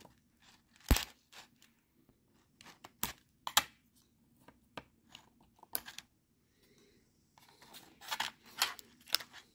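Small plastic clicks, ticks and crinkles from a laptop's keyboard ribbon cables and their connector latches as they are worked loose by hand and with a plastic pry tool. Scattered sharp ticks, the loudest about a second in, with a quicker run of them near the end.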